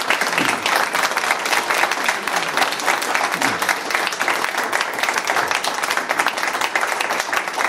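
Audience applauding steadily, many hands clapping together at the end of a talk.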